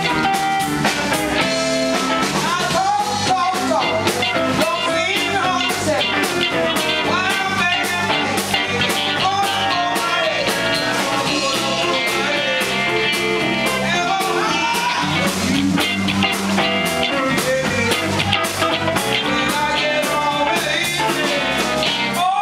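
Live blues band playing: a woman singing into a microphone over electric guitars, electric bass and a drum kit.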